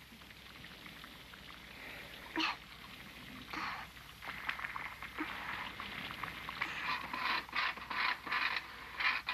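Mysterious creaking and rustling noises, not the wind in the trees, with short knocks coming faster and louder in the second half, about two or three a second near the end.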